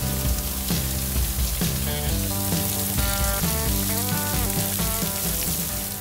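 Torrential rain pouring down, a dense steady hiss with fine crackle, with background music playing over it; both fade out at the very end.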